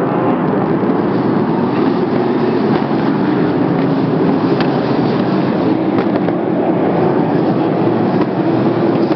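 Sprint car engines running steadily at racing speed, a loud continuous racket, with two sharp clicks about four and a half and six seconds in.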